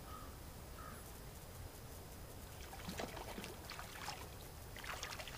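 Faint water: light trickling and small splashes, with clusters of crisp clicks and splashes about three seconds in and again near the end, over a quiet steady hiss.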